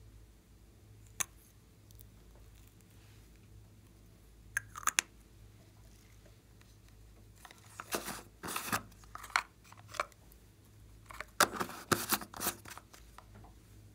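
Small plastic containers and caps being handled and opened by hand. There is a sharp click about a second in and a few more clicks near five seconds, then two spells of crackling, scraping plastic handling: one around eight seconds and a louder one near twelve seconds.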